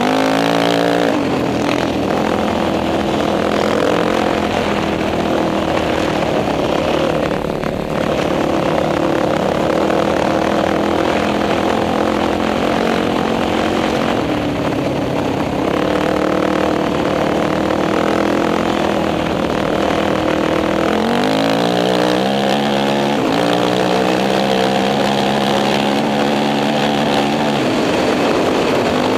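Sport quad's engine running hard under load, heard from on board, with a steady rush of wind noise. About two-thirds of the way through, the engine note drops, then climbs steeply as the quad accelerates again.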